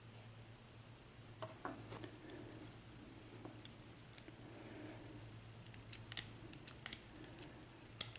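Faint, scattered small metal clicks and ticks of padlock pins and springs being worked out of their chambers, coming quicker and louder in the last few seconds.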